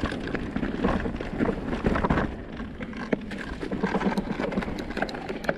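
Electric mountain bike riding over a rough trail: a steady rumble of the tyres on the ground with frequent small rattles and knocks from the bike.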